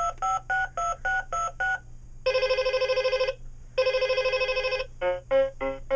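VTech Little Smart Pull n' Play rolling toy phone's electronic sounds: a quick run of about seven dialing beeps, then two bursts of trilling electronic ringing about a second each, then three short beeps near the end.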